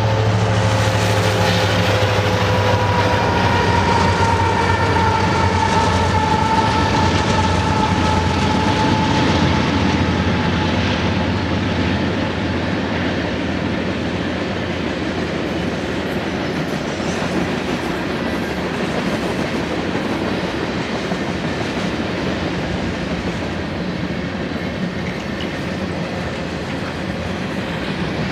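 Union Pacific manifest freight train rolling past, its tank cars, coil cars and boxcars clattering over the rail joints with a steady rumble. A low engine drone is heard for the first ten seconds or so and then fades as the locomotives pull away. A high tone slowly falls in pitch and fades over the first dozen seconds.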